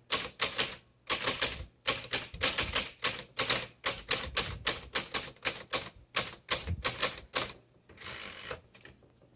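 Manual typewriter being typed on, with quick runs of sharp keystroke clacks, then a longer rasping sound about eight seconds in. The machine is a 1936 Smith Corona Standard flat top.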